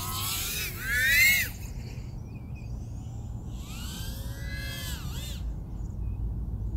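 Eachine TS130 micro FPV quad's 1507 brushless motors and propellers whining, their pitch rising and falling sharply as the throttle is punched and cut. The loudest surge is about a second in, with another burst around four to five seconds. A steady low rumble runs underneath.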